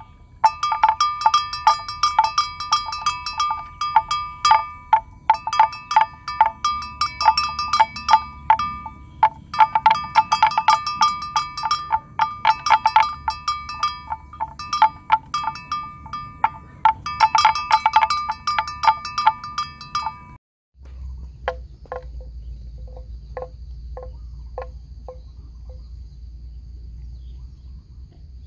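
Bells hung on grazing water buffalo clanking irregularly, in bursts of many bright, ringing metallic strikes with short pauses between. Near the end only a few single, lower-pitched clonks remain.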